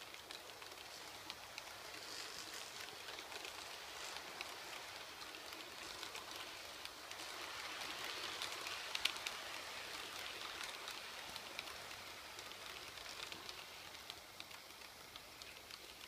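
H0-scale model train rolling over layout track and points: a steady rushing of wheels on rail, peppered with small clicks from rail joints. It grows louder around the middle as the coaches pass close, then fades.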